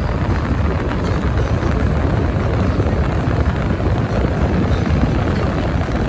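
Steady rush of air from a wall-mounted LG air conditioner's blower fan, heard right at the outlet, with a heavy low rumble from the airflow hitting the microphone.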